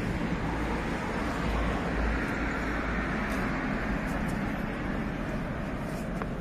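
Steady road traffic noise: a low rumble under a continuous haze of tyre and engine noise, swelling slightly about a second and a half in.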